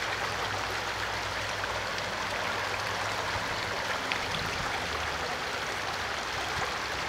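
Shallow creek flowing over rocks and gravel, a steady rippling rush of water.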